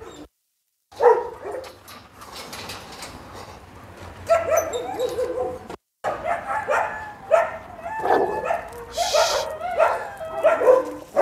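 Dogs giving many short barks and whines in quick succession, starting about a second in.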